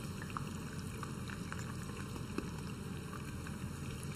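Hollowed-out zucchini deep-frying in hot vegetable oil in a pot: a steady sizzle with a few sharper pops.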